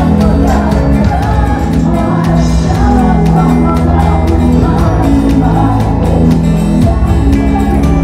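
Music with a singing voice over sustained bass notes and a steady beat.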